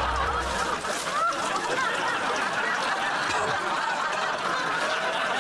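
Sitcom studio audience laughing: a dense, continuous crowd laugh with many voices at once.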